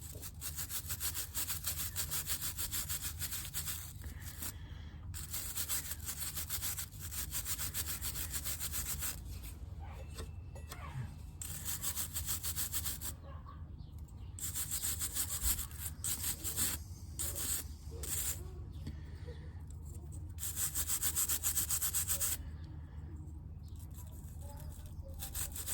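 A small brush scrubbing brake caliper parts, in bouts of quick back-and-forth strokes separated by short pauses, over a steady low hum.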